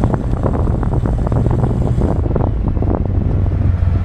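Open-cockpit Patak Motors prototype roadster driving along, wind buffeting the microphone over a steady low drone from the car. A little past halfway the drone settles lower and the wind hiss eases as the car slows.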